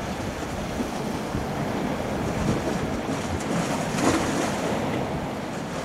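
Sea waves washing and breaking against a rocky shoreline, a steady rushing noise that is briefly louder about four seconds in, with wind buffeting the microphone.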